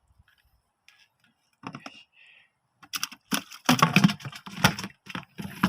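Rapid, irregular clicking and clattering, sparse at first and then dense from about three seconds in.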